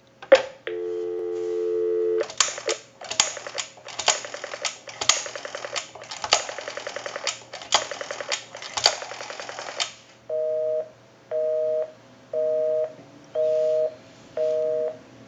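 A click, then a telephone dial tone for under two seconds, cut off as the rotary dial of an Automatic Electric Model 21 wall telephone is turned and runs back for several digits, with rapid pulse clicks. From about ten seconds in comes a busy signal, beeping about once a second, because the line is calling its own number.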